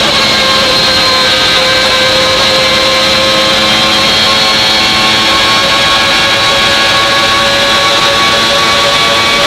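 Williams FW14B Formula 1 car's Renault V10 running at high revs, its note mixed with a high metallic whine from the straight-cut gears. The pitch holds nearly steady throughout.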